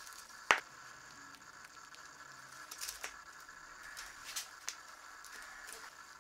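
Gloved hands handling and pressing a copper spacer and a burlap micarta handle block together on a paper-covered bench: one sharp click about half a second in, then a few lighter clicks and taps, over a faint steady hiss.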